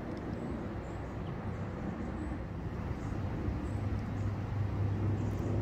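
A low, steady engine hum that grows louder over the last two seconds.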